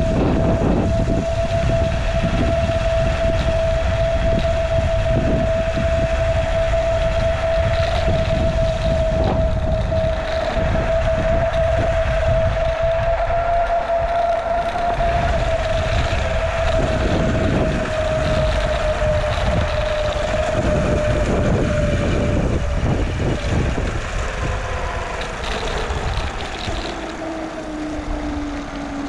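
Steady whine from a moving vehicle, over wind rumbling on the microphone. In the last few seconds the whine slides down in pitch and the sound grows quieter as the vehicle slows.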